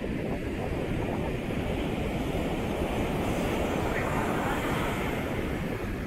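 Small surf waves breaking and foam washing up over the sand: a steady rush of water that swells a little in the middle, with a low rumble beneath.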